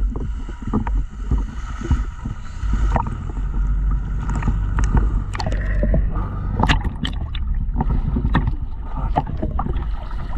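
A small fishing boat's engine running as the boat comes alongside, a steady low rumble, heard from the water's surface. Small waves slap and splash around it, with sharper splashes and water pouring off in the second half.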